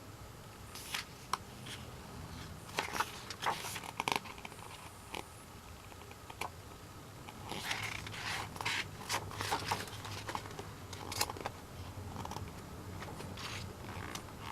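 Intermittent rustling, clicks and scrapes of a K-pop album and its paper and plastic contents being handled, with clusters of handling noise about a second in, midway and near the end.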